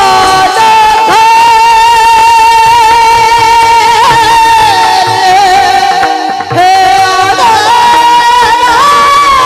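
A male kirtankar singing a Marathi kirtan chaal in raga Bhairavi, holding long ornamented notes over steady instrumental accompaniment, with a brief break for breath about six seconds in before the line resumes.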